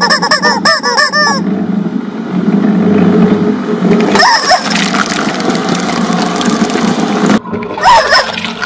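Rubber squeeze chickens squawking over and over in quick succession for the first second and a half, over the steady hum of a running twin-shaft shredder. Another squawk about four seconds in, then the shredder's blades chewing through the rubber toys with a dense grinding noise, and one more squawk near the end.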